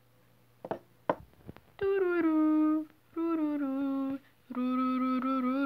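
A person humming three held notes, each a little lower than the last, after a couple of short clicks.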